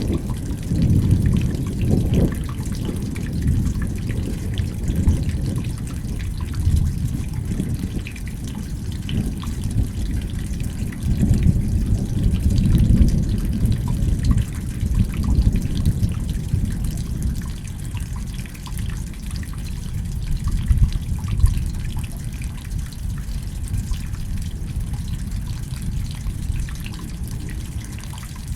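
Rain falling and dripping, with a low rumble underneath that swells and fades several times.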